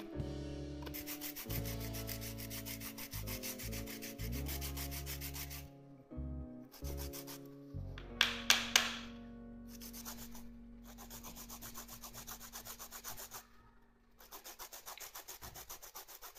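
Carrot being grated on a flat plastic hand grater: quick, even scraping strokes, pausing briefly twice.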